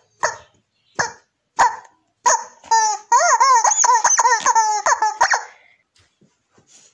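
Yellow rubber chicken squeaky toy squeezed by hand: a run of short honking squawks about every two-thirds of a second, then a long squawk wavering up and down in pitch for nearly three seconds as it is squeezed again and again.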